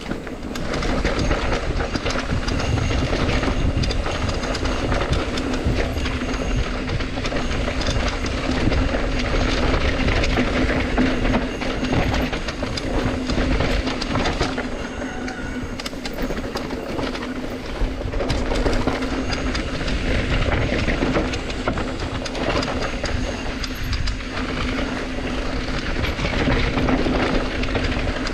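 Bike rattling and jolting down a rough mountain trail, with wind buffeting the microphone and a steady low hum underneath.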